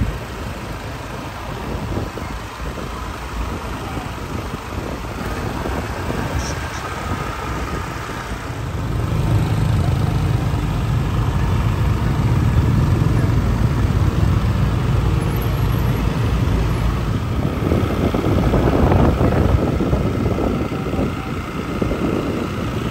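A vehicle engine running steadily, growing louder about nine seconds in.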